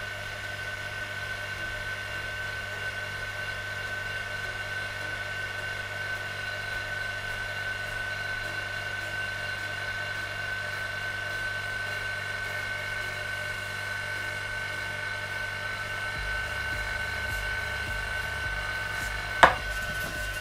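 Vacuum pump running with a steady hum and constant whine. About nineteen seconds in comes a single sharp pop as a sealed soda can bursts, its internal pressure pushing against the vacuum around it.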